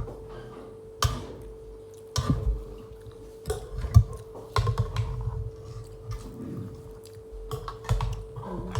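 Eating and food-handling sounds: scattered sharp clicks and knocks of chicken pieces and dishes being handled, with low thuds from chewing, over a steady hum.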